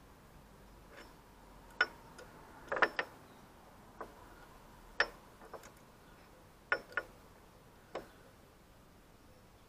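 Sharp metallic clicks and clinks, about a dozen at irregular intervals, from a motorcycle side stand and its coil return springs being handled and worked at the frame bracket during fitting.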